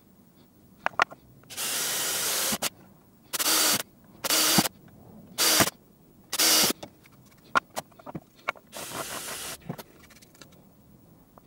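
Cordless drill running in six short bursts as a twist bit bores through a thin ABS plastic box; the first run is the longest and the last is quieter. A few light handling clicks just before the first burst.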